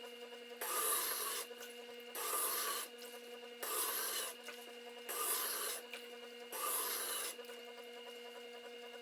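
Tormek wet grinder running with a steady hum while a jointer blade held in the SVG-320 jig is drawn across the wet grinding stone five times, each pass a rasping grind lasting under a second; near the end only the motor hum is left. The passes are grinding nicks out of the blade's bevel.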